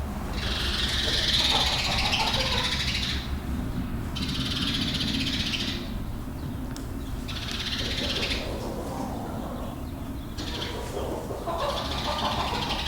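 Chickens calling in the barn in several stretches of a second or more, over a steady low hum.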